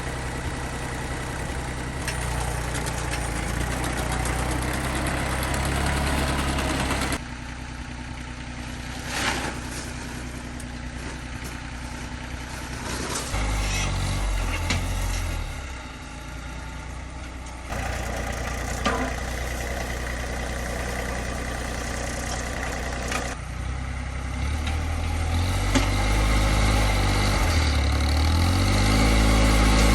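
An engine running under changing load, its pitch rising and falling, heard in several short clips cut together.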